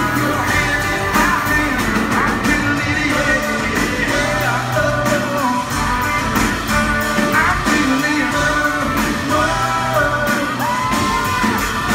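Live country-rock band playing: electric guitars, bass and drums with singing, heard from the audience.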